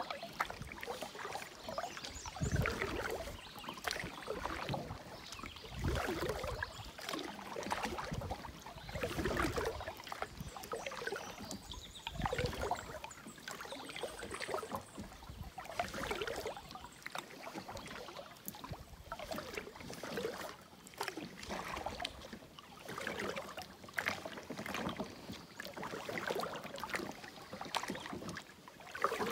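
Canoe paddle strokes, the blade swishing through the water and dripping, one surge every few seconds.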